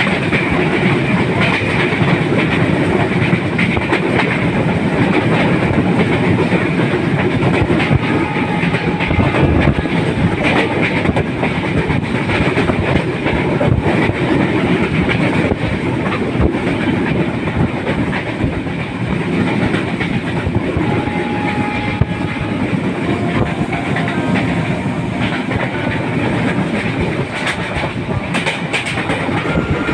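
Bangladesh Railway passenger train running along the track: a steady rumble of wheels on the rails.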